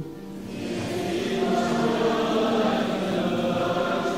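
A large congregation chanting a response to a funeral litany in unison, many voices blended together. The chant swells in over the first second and then holds steady.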